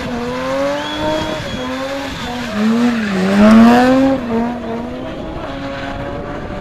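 BMW E30 spinning: the engine revs up and down hard over the screech of a spinning rear tyre, climbing to its loudest about three and a half seconds in. About four seconds in the sound changes abruptly to a steadier, duller engine note.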